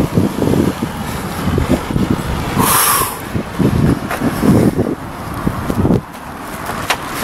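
Car traffic passing close by on a busy road, with wind buffeting the microphone. A short hiss about three seconds in.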